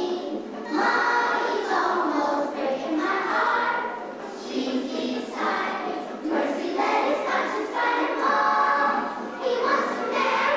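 A group of children singing together as a choir, in sustained phrases of about a second or two each.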